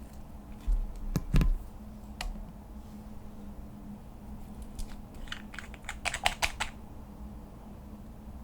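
Slime being worked by hand, giving off sharp clicking pops. Two dull thumps come about a second in, and a quick cluster of clicks comes around six seconds in.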